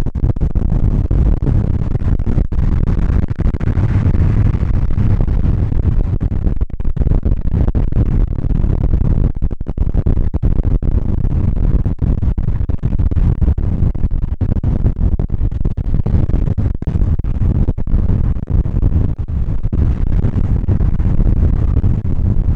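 Steady low rumble of road and wind noise from a car driving, loudest in the bass, with no clear tones.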